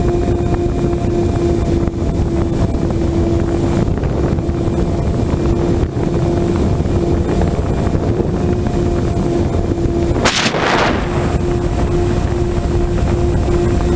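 Wind buffeting the onboard microphone of an FPV model aircraft in flight, with its propeller motor's steady hum running underneath. About ten seconds in, a brief rushing hiss sweeps through.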